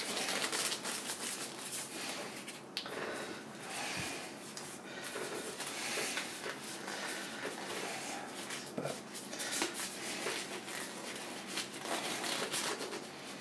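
Thin disposable surgical gloves rustling and stretching as they are pulled onto the hands, with a few light knocks in between.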